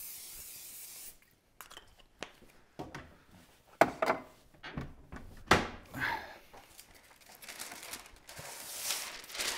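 Aerosol pan spray hissing onto a metal sheet pan for about a second, then a series of knocks and clunks as the can is put away and a cupboard door is handled. Near the end, paper rustles as parchment paper is pulled from its box.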